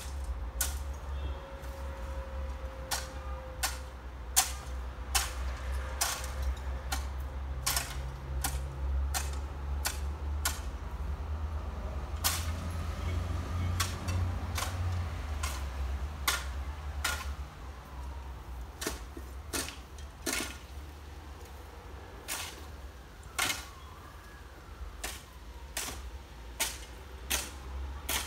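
Irregular sharp clicks and knocks of a hand tool scraping and striking gravel and debris during yard clean-up, over a steady low rumble.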